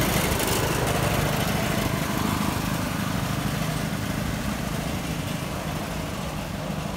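Small engine of a two-wheel tractor pulling a cart, chugging steadily as it drives through shallow floodwater.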